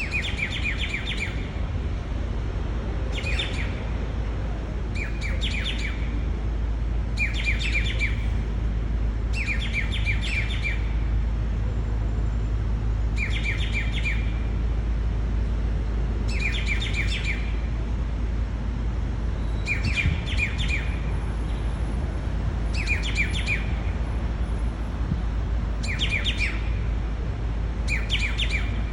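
Grey treepie calling over and over: a short call of several quick notes, repeated about every two seconds, over a steady low rumble.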